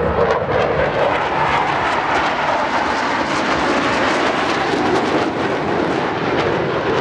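Jet noise from a formation of Black Eagles' KAI T-50B Golden Eagle jets flying past: a loud, steady rushing sound.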